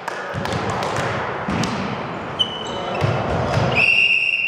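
Volleyball referee's whistle: one long steady blast near the end, signalling the next serve. Before it, players' voices, thuds and shoe squeaks echo in the sports hall.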